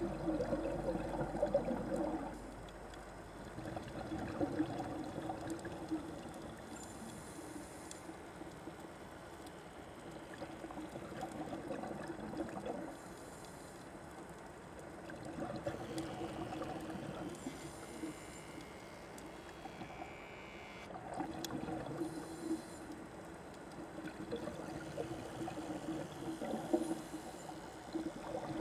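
Soft watery ambience over a low, steady drone, swelling and fading about every four to five seconds.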